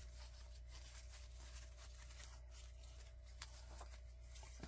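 Near silence: faint room tone with a steady low hum and a few light ticks of handling.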